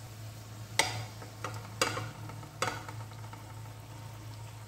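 Boiled mixed vegetables being tipped into a kadai of frying masala, with several sharp knocks against the pan in the first three seconds and a faint sizzle underneath.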